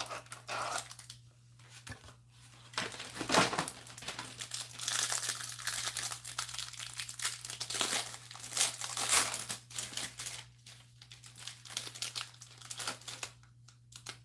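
Clear plastic wrapper around a stack of trading cards being torn open and crumpled in irregular bursts of crinkling, loudest in the middle, as the cards are unwrapped from a cardboard hanger box.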